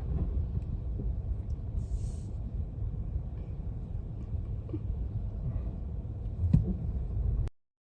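Strong gusting wind buffeting the microphone as a low, uneven rumble, with a few faint knocks and one sharper knock near the end before the sound cuts off suddenly.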